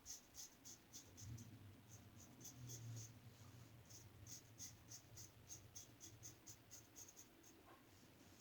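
Williams double-edge safety razor scraping through lathered stubble in short, quick strokes, several a second.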